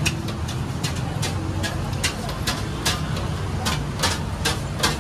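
Quick sharp taps, about two or three a second, as rabdi is scooped by hand from a steel pan and dropped onto clay kulhads of lassi. A steady low engine hum runs underneath.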